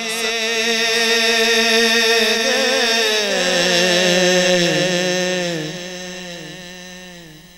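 A solo male voice sings a long, wavering, held naat phrase into a microphone. It steps down in pitch about three seconds in and fades away near the end.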